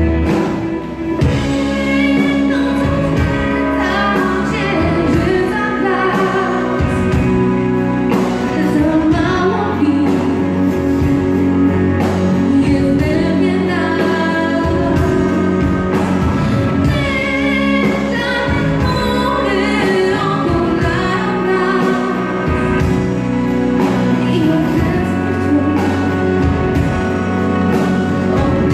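Live rock band in performance: a woman singing lead over drums, electric guitar, bass guitar and keyboards.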